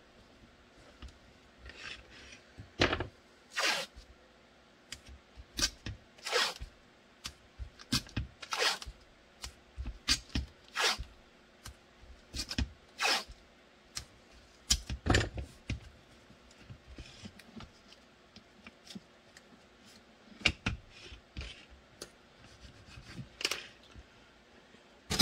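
Blue painter's tape being pulled off the roll in short strips and pressed and rubbed down by hand over a gun mold: a string of irregular short rasps with quiet gaps between them.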